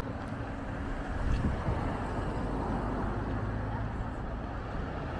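Steady road and engine noise of a car driving slowly along a town street.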